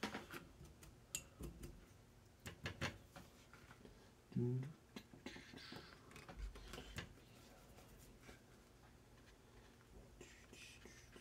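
Faint clicks and taps of paintbrushes being handled, then the soft brushing of a fine watercolor brush on paper. A short hum of a voice about four seconds in.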